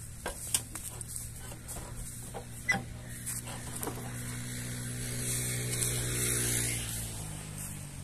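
Footsteps crunching and rustling through dry grass, with a few sharp clicks, over a steady engine hum that swells in the second half and then fades.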